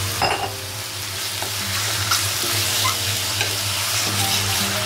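Raw chicken breast pieces frying in hot oil in a stainless steel pot, a steady sizzle, as a wooden spoon stirs them with small knocks and scrapes against the pot.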